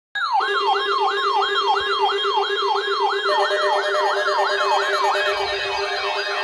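Electronic siren-style alert sound from a broadcast weather alert. It starts abruptly out of silence: a fast, repeated falling sweep, about three times a second, over a steady low tone.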